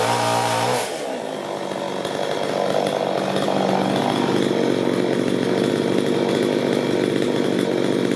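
Two-stroke petrol chainsaw at full throttle with its bar in a log. About a second in the throttle is released, the revs fall, and it settles to a steady idle.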